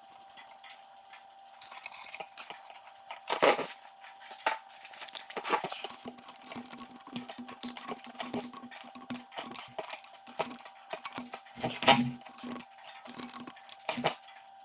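Metal hand tools and engine parts clinking and knocking in a run of sharp clicks, with louder clanks about three and a half and twelve seconds in.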